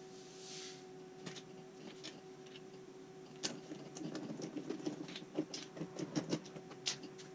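Light irregular clicks and knocks, like small hard parts or tools being handled, coming thicker and louder in the second half, over a steady hum.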